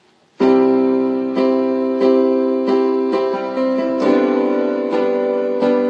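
Piano intro to a song: sustained chords struck at an even, slow pace, starting abruptly about half a second in.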